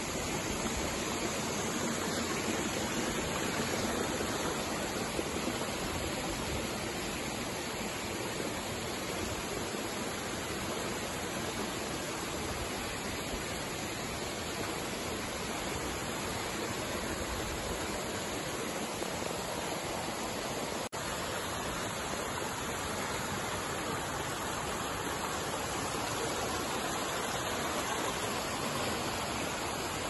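A small waterfall splashing down over rock ledges: a steady, even rush of falling water. It cuts out for an instant about two-thirds of the way through.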